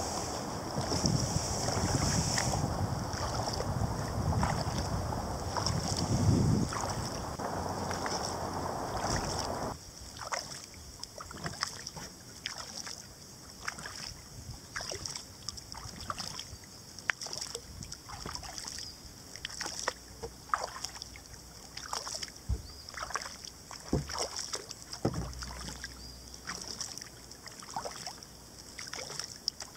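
Wind noise on the microphone with a heavier bump about six seconds in while a sea kayak is handled onto a truck rack. The wind cuts off abruptly about ten seconds in. What follows is quieter: irregular small water drips and splashes against a kayak.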